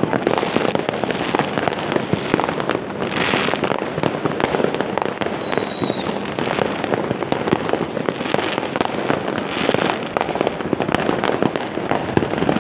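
Many fireworks going off at once: a dense, continuous crackle of bangs with no gaps. A short high whistle sounds about five seconds in.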